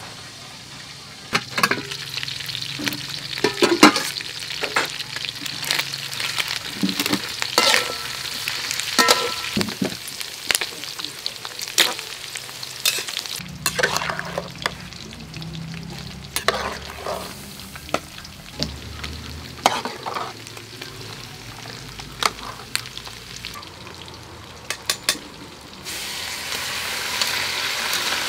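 A metal spoon stirring vegetables in an aluminium pot, with many sharp clinks of metal against metal over a steady hiss. Near the end the vegetables are tipped from a metal strainer into a hot wok of fried chicken, and a louder, steady sizzle starts.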